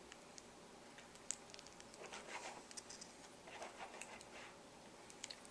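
Faint mouth-rinse sounds: water swished and spat into a plastic emesis basin, two soft sounds about two and three and a half seconds in, with a small click just after a second in.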